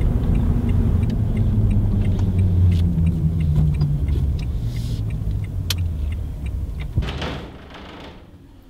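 Car engine running and road noise from a moving open-top car, with a steady low hum that fades away about seven seconds in.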